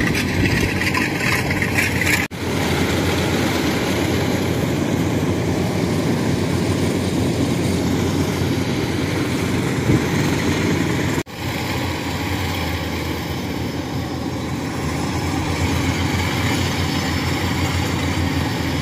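Engine of a Kubota '95' tracked rice combine harvester running steadily under load while it cuts rice. The sound drops out for an instant twice.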